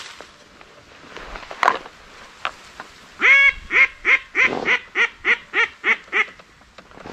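Duck call blown close by in a hen mallard's quacking series: one longer quack, then about nine shorter ones, roughly three a second.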